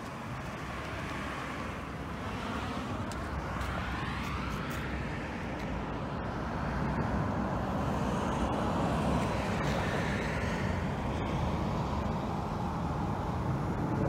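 Road traffic: a steady wash of tyre and engine noise from passing vehicles, growing louder a few seconds in, with a faint whine rising and later falling as vehicles approach and go by.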